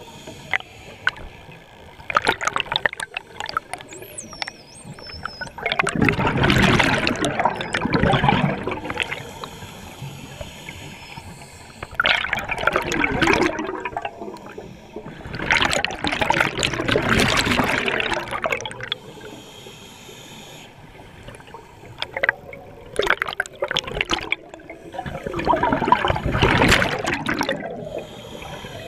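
Scuba regulator exhaust bubbling underwater in repeated bursts, about six exhalations a few seconds apart, with quieter inhale pauses between. A few faint, high, wavering whistles sound around four seconds in.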